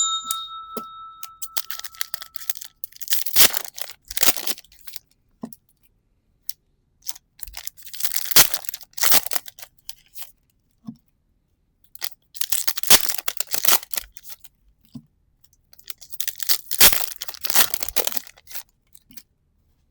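Trading-card booster packs being torn open and their foil wrappers crinkled, in four bursts of tearing and rustling a few seconds apart. A sharp click with a brief ringing tone comes right at the start.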